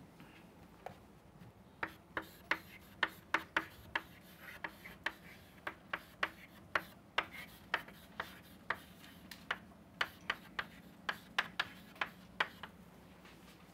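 Chalk writing on a chalkboard: a quick, irregular run of sharp taps and short scrapes as letters are written, about two or three a second, stopping about a second before the end.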